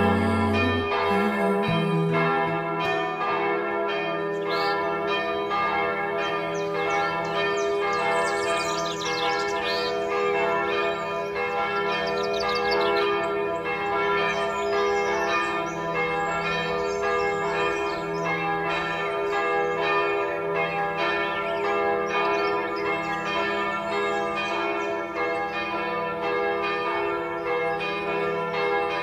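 Church bells ringing in a continuous peal: many overlapping strikes that ring on into one another at a steady level.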